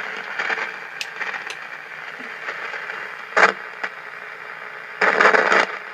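Lightning static crashes from distant thunderstorms heard through a 1970 Radio Shack Realistic DX-150A receiver's speaker: a steady hiss broken by a short crash about three and a half seconds in and a longer one about five seconds in, with a few faint clicks.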